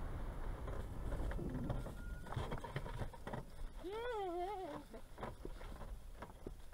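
A hang glider pilot's footsteps and rustling in dry grass, with light wind on the microphone and scattered ticks from the glider's frame. About four seconds in comes one brief, high, wavering voice-like call that rises and then falls.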